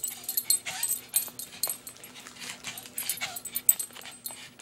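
Small dog whimpering, giving a few short rising whines amid many sharp clicks and rustles.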